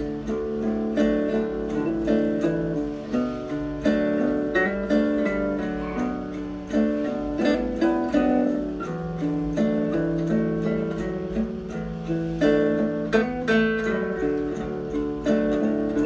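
Background music played on a plucked acoustic guitar, a steady stream of picked notes.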